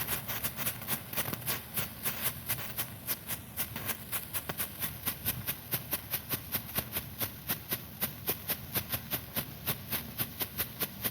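Several strobe fireworks (strobe pots) popping rapidly, about five or six sharp pops a second.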